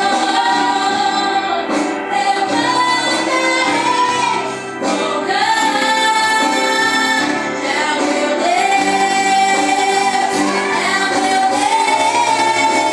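Female voices singing a worship song in long held notes over band accompaniment.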